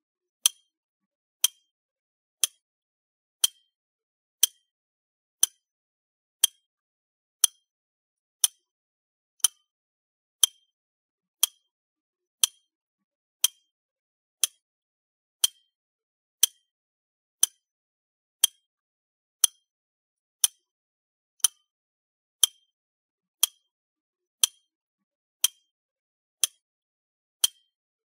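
Countdown timer tick sound effect: one sharp click with a short high ring every second, marking the seconds as the timer counts down.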